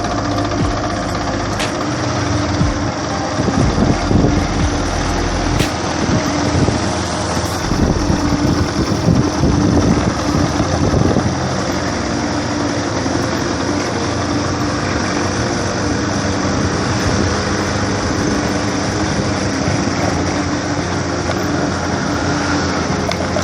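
A Yamaha SR125's single-cylinder four-stroke engine running steadily on its freshly rebuilt carburettor, with some unevenness in the first several seconds before it settles.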